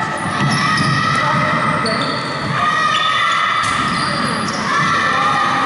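Basketball being dribbled on a hardwood gym floor during play, with echoing bounces and players' voices in a large hall. Steady tones that change pitch in steps run underneath.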